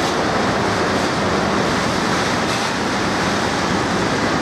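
Freight train of tank wagons rolling past on the station track: a steady rushing noise of wheels on rails.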